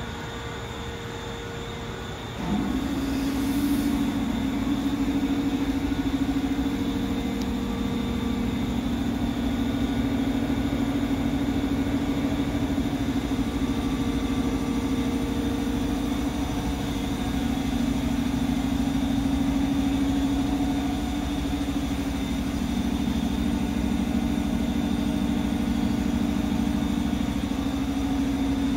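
A steady mechanical hum winds up quickly about two and a half seconds in, holds one constant pitch, and winds down near the end.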